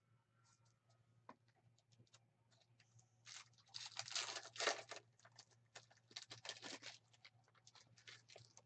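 Foil trading-card pack being torn open and crinkled, a noisy burst lasting about a second and a half starting a little over three seconds in. It is followed by quick soft clicks and rustles of the cards being handled.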